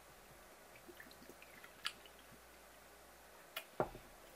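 A ceramic sake bottle handled on a wooden counter: a couple of faint clicks, then a sharper knock with a short dull thump near the end.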